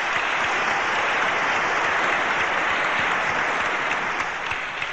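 A large audience applauding steadily, dying down slightly near the end.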